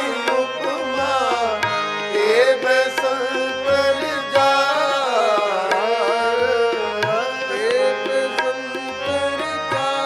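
Sikh kirtan: a male raagi holds out a long, ornamented sung note over the steady drone of a harmonium. A tabla keeps time with deep bass strokes every second or two.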